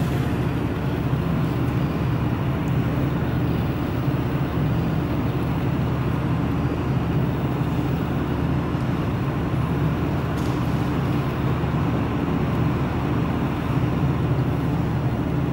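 Steady low rumbling background noise, even throughout with no breaks.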